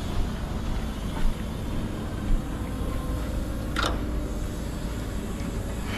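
Diesel truck engine idling, a steady low running sound, with a brief click about four seconds in.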